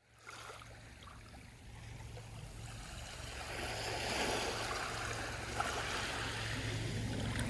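Sea surf washing onto a beach. It fades in from silence and swells over the first few seconds, over a steady low rumble.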